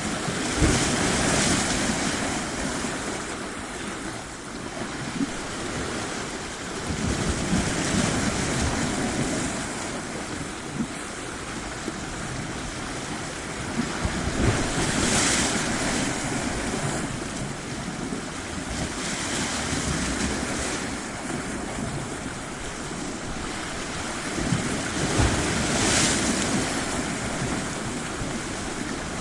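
Ocean surf washing onto a shore, the waves swelling and breaking about every six seconds, with wind on the microphone.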